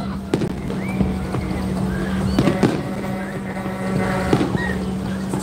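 Firework display: aerial shells bursting in a string of irregular bangs, several about a second apart, with short whistling tones rising and falling between them.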